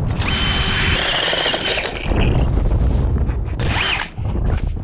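A DeWalt FlexVolt cordless drill turning an ice auger into lake ice: a steady motor whine with grinding for about two seconds, dropping lower partway through, then a short rev up and back down near the end. Wind rumbles on the microphone underneath.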